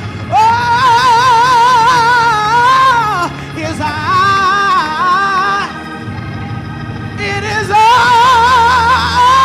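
A woman's gospel singing voice holds long notes with heavy vibrato over sustained organ chords and bass that she plays on a Hammond-style organ. She sings three held phrases, with a brief organ-only gap a little past the middle.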